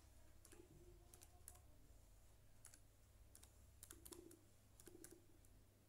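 Faint typing on a laptop keyboard: about fifteen light, irregularly spaced keystroke clicks over a low steady hum.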